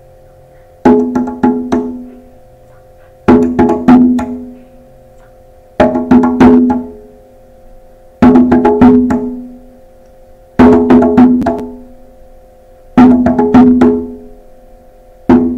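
A djembe-style hand drum played with bare hands, giving the high drum part: a rest, then a quick run of about four or five strokes, repeated evenly about every two and a half seconds.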